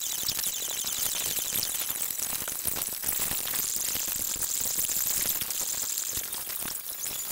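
Sped-up time-lapse room sound of a busy dining area: a dense hiss crowded with quick clicks and clinks of glasses and tableware, with a rapid high-pitched pulsing through the middle.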